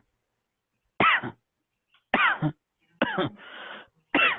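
A man coughing in four short, separate coughs about a second apart, a recorded sample of a COVID-19-positive cough.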